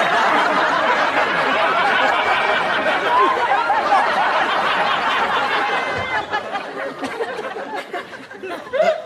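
Studio audience laughing: many people at once in a long, loud burst of laughter that dies away over the last few seconds.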